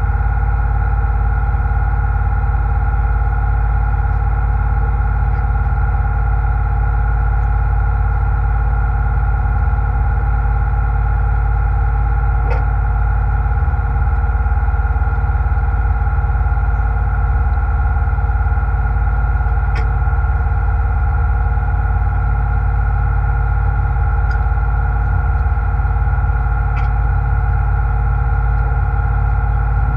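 Fishing boat's engine running steadily under way, a loud, even drone with a deep rumble and a fixed whine that never changes pitch. A few faint ticks sound over it.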